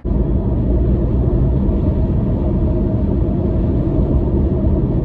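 Car driving at speed: a steady, loud low rumble of road and engine noise heard inside the cabin. It starts and stops abruptly.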